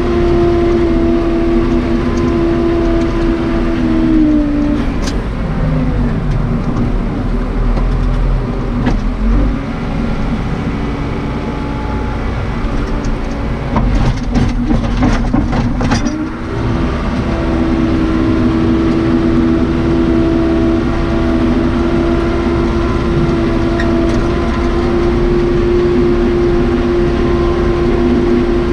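Cummins 4BT diesel of a 1993 Case 580 Super K backhoe running steadily at high revs; its note drops about four seconds in and climbs back up around sixteen seconds. A quick run of metallic knocks comes just before the revs return.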